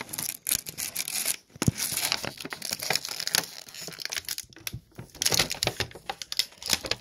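Action-figure packaging being handled and pulled open: irregular crinkling and tearing noises.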